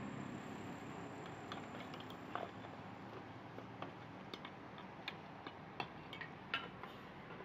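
Irregular light metal clinks and taps of a ladle knocking against aluminium stew pots, growing more frequent in the second half, over a steady background hiss.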